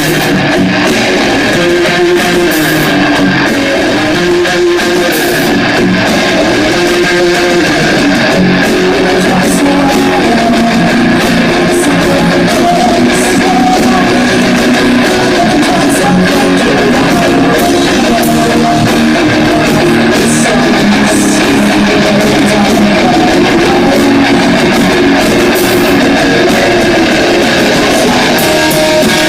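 Live rock band playing, led by guitar: a loud, continuous instrumental passage.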